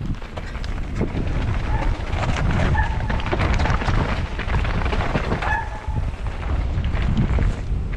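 Mountain bike ridden fast down a rough dirt singletrack: a constant low rumble of wind on the microphone and tyres on dirt, with steady rattling and knocks from the bike over roots and stones. A few short high squeaks come through about two to three seconds in and again near the middle.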